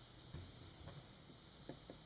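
Faint clicking and scratching of a hook pick and tension wrench working the pins inside a Yale padlock's keyway: a handful of small ticks over a steady hiss.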